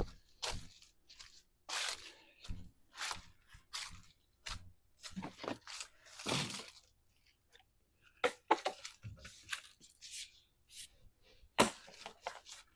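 Dry fallen leaves crunching and rustling in short, irregular crackles as a person moves through and around them.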